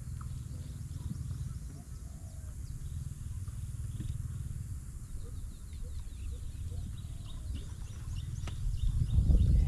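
Wind buffeting the microphone: an uneven low rumble that gusts louder near the end. Faint high bird chirps in the background.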